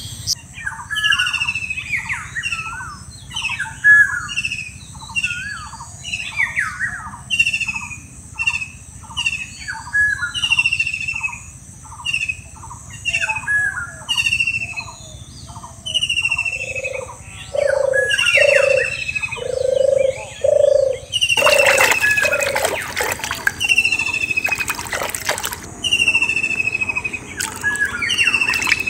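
Birds singing: one repeats a short falling whistle about once a second, and a run of about six low hoots comes in after the halfway mark. In the last quarter a rough wet splashing and squelching of hands working in a muddy, water-filled hole joins the birdsong.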